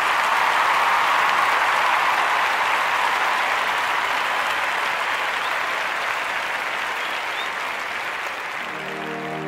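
Audience applause, loudest in the first seconds and slowly dying away. Just before the end a low, held musical chord comes in.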